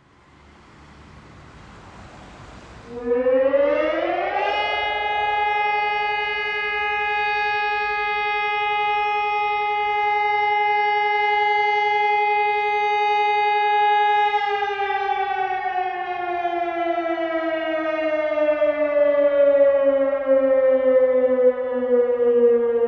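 Sonnenburg SES 2400 electronic high-power siren sounding a test alarm. About three seconds in it starts with a quick rising whine and holds one steady tone for about ten seconds, then begins a slow, even fall in pitch.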